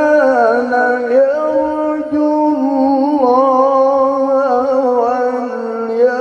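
Man reciting the Quran in melodic tilawah style into a microphone, one long unbroken melismatic phrase with wavering, ornamented pitch. His voice is hoarse and forced, which he puts down to being unwell.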